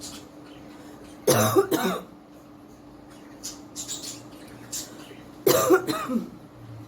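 A woman coughing in two harsh bouts about four seconds apart, each under a second long; a real cough from being unwell, as she says she has one.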